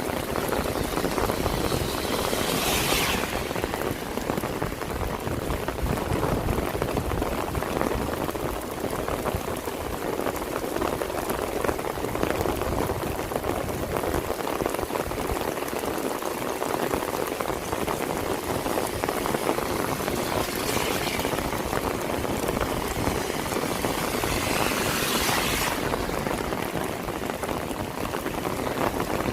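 Steady heavy rain falling and splattering, a dense even patter. Brief hissing swells rise over it three times, about 3, 21 and 25 seconds in.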